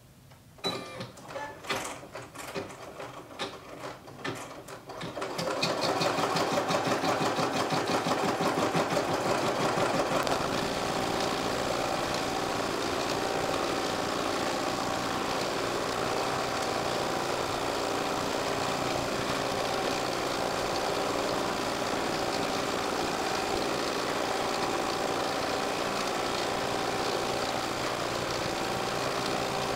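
Brother embroidery machine stitching out a design, its needle running at a fast, steady rhythm while the carriage moves the hoop back and forth. The first few seconds hold only a few separate clicks before the stitching starts about five seconds in.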